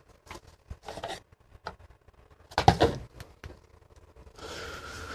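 Scattered knocks and clicks of objects being handled, with a louder clatter about two and a half seconds in, then a steady hiss with a faint whine near the end.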